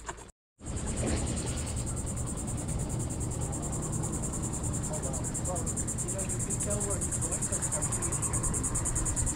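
A steady, high-pitched insect trill, pulsing fast, over a low rumble; it begins after a brief dropout just after the start.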